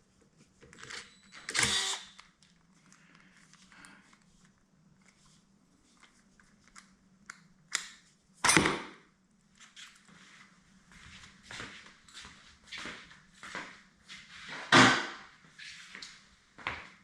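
Hand tools knocking and clinking against a garbage disposal's metal parts during teardown: scattered small ticks and scrapes, with three louder clunks near the start, about halfway through and near the end.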